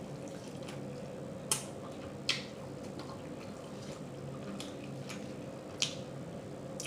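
Close-up wet mouth smacks while chewing food: a few sharp smacks, the clearest about a second and a half in, just after two seconds and near six seconds, with fainter ones between, over a steady low hum.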